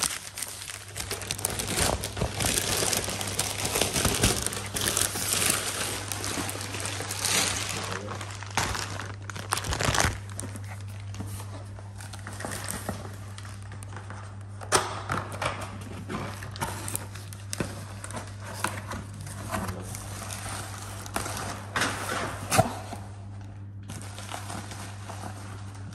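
Plastic bag and clothing rustling and crinkling right against a phone's microphone as it is carried covered, with sharp knocks now and then over a steady low hum.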